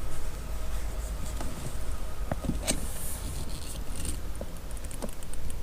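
A screwdriver prying up a plastic trim cap and wedge on a Corvette console plate: scattered small plastic clicks and scrapes, with one sharper click about halfway through.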